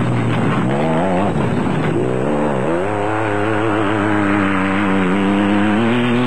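Off-road race buggy's engine revving hard at speed. Its pitch dips and climbs back twice in the first three seconds, then holds high and steady.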